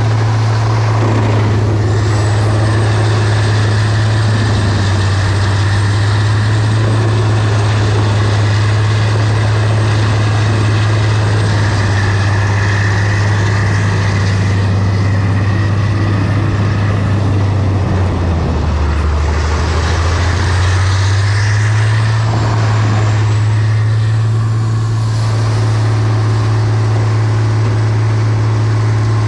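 Diesel engine of a Mercedes-Benz Arocs timber truck running steadily under load, with a thin high whistle above it. The engine note drops lower for a few seconds about two-thirds of the way in, then comes back up. The whistle fades out near the end.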